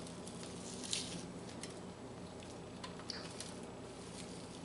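Faint wet squishing and a few small ticks as fingers loosen the skin from a raw chicken thigh, the clearest tick about a second in.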